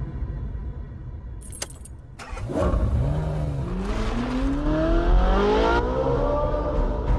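A car engine, with a few sharp clicks about a second and a half in, then the engine catching and accelerating, its pitch climbing steadily and rising again near the end.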